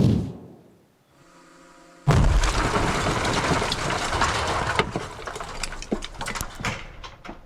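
Bomb strike on a building: a sharp bang at the start, then about two seconds in a loud blast followed by debris raining down, with stones and bits of glass clattering and crackling as it thins out over several seconds.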